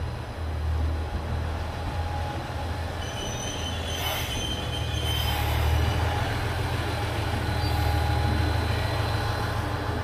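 JR Central HC85 hybrid diesel railcar standing at a station platform, its diesel engine running with a steady low hum. A brief high squeal from the train comes about three to five seconds in.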